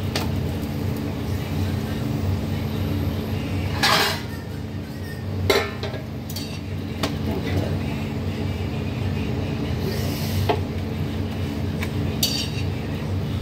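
A few separate metal clinks and scrapes of tongs against a hot griddle while a paratha cooks, over a steady low hum.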